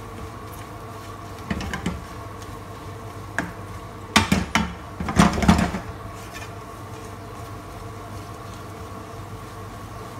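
A spatula scraping and knocking against a non-stick frying pan while stirring thick chilli paste. The knocks come in a quick cluster about four to six seconds in, over a steady low hum.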